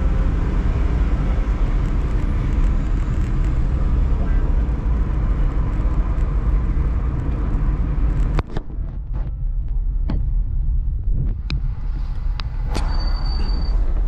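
Car driving in slow traffic, heard from inside the cabin: a steady low rumble of engine and road noise. About eight seconds in the hiss above it drops away, and a few sharp clicks follow over the rest of the stretch.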